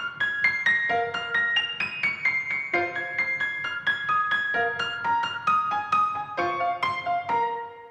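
Background piano music: a fast run of bright single notes over a steady pulse.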